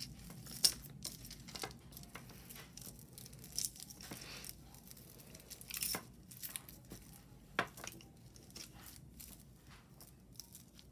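Faint rustling and scattered light clicks and taps of costume jewelry pieces being handled and untangled.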